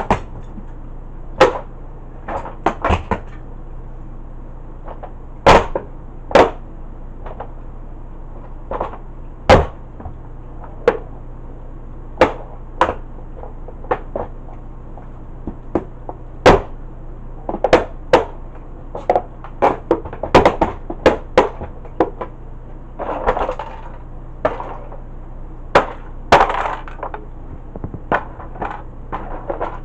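Plastic Tonka toy tow truck cracking and snapping under a boot pressing down on it: irregular sharp cracks one to a few seconds apart, with a couple of longer crackling spells in the last third.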